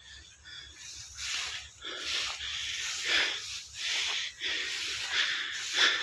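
Tall dry grass rustling and swishing against legs and the phone as someone walks through it, about one swish a second.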